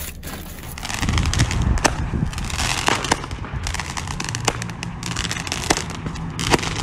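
Handheld firework going off about a second in, crackling with many rapid sharp pops as it sprays sparks.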